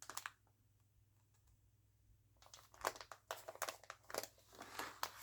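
Plastic stamp-set sleeves crinkling as they are handled in a binder: a short rustle at the start, then a run of quick crinkles from about halfway on.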